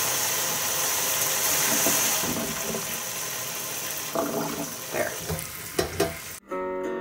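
Kitchen tap water pouring onto strawberries in a stainless steel colander in a stainless steel sink: a steady splashing hiss, with a few short knocks near the end as a hand handles the berries. The sound cuts off suddenly just before the end into acoustic guitar music.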